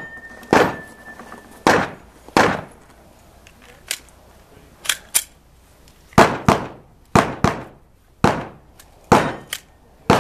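Pistol shots fired during a timed course of fire: about a dozen sharp reports, irregular at first and then in quick pairs. A thin steady ringing tone sounds through the first second and a half.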